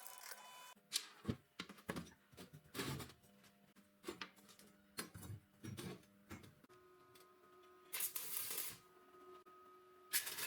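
Irregular clicks, knocks and short scraping sounds of small hard parts being handled and adjusted, with a longer scrape near the end.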